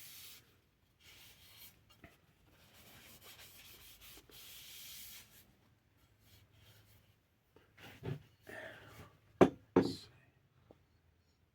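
Rag rubbing boiled linseed oil into a wooden axe handle, a soft, faint, intermittent swishing, then a few louder handling knocks near the end, two of them sharp and close together.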